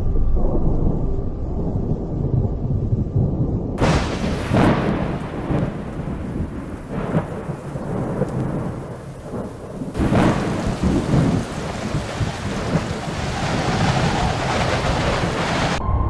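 Thunderstorm: low rolling thunder, then heavy rain starts abruptly about four seconds in, with several sharp thunderclaps over it. The rain cuts off just before the end.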